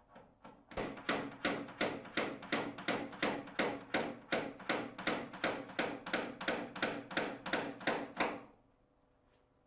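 Small hammer tapping glazing pins into a wooden door frame around the edge of a pane of glass to hold it in place. It is a quick, even run of light taps, about three to four a second, that stops about eight and a half seconds in.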